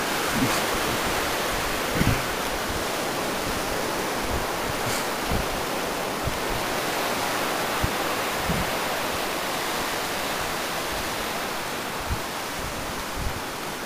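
Steady rush of sea surf breaking on a sandy beach. Wind on the microphone adds a few short, low thumps.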